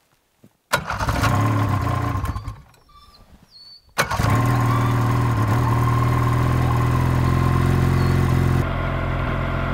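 Snowmobile engine started: it runs for about two seconds and stops. About four seconds in it starts again and keeps running at a steady idle.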